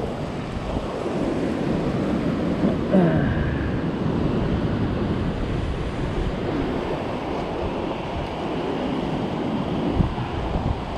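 Ocean surf washing over a flat coastal rock shelf, a steady rushing wash, with wind buffeting the microphone. A brief voice sound comes about three seconds in.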